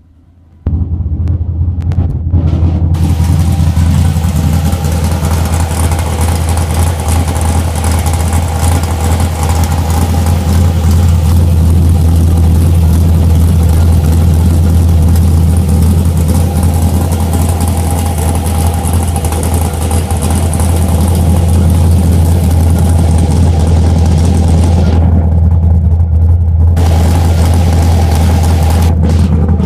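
LS454 V8 engine idling roughly, a steady low rumble that comes in abruptly about half a second in.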